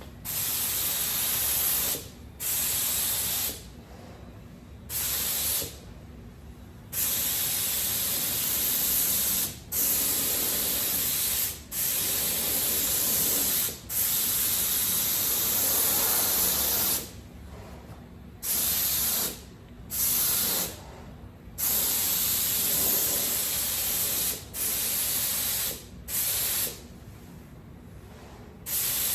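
Air-driven paint spray gun (Aero Pro, 2.5 tip, about 30 PSI) spraying polyester primer. The trigger is pulled in repeated passes: about a dozen bursts of hiss, each from under a second to about three seconds long, with short pauses between them.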